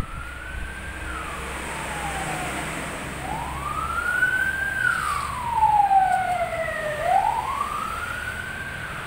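CNC pipe-bending machine's drive motor whining, its pitch rising and falling three times as the forming rollers speed up, hold and slow down while bending a steel pipe.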